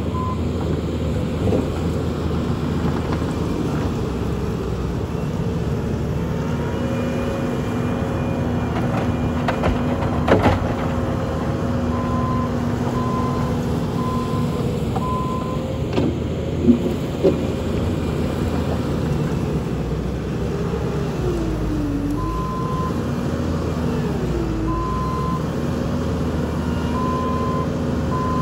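Bobcat T770 compact track loader running, its diesel engine steady, with the reverse alarm beeping in evenly spaced beeps in two spells. Twice past the middle the engine note dips and recovers under load. There are a couple of sharp clanks, about ten and seventeen seconds in.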